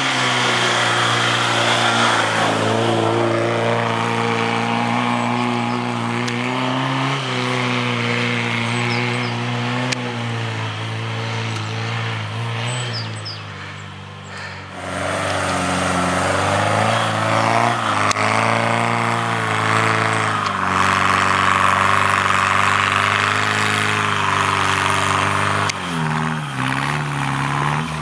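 Engine of a 4x4 off-roader driving through snow, its pitch rising and falling with the throttle. The sound dips briefly about halfway through, and near the end the revs waver up and down.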